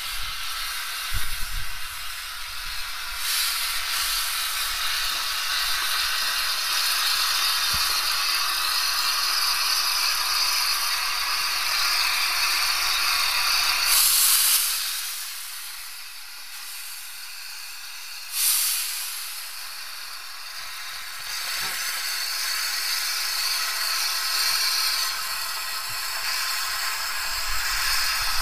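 Steam hissing from a small Bagnall 0-4-0 saddle-tank steam locomotive: a long steady hiss that falls away for a few seconds about halfway, then comes back suddenly.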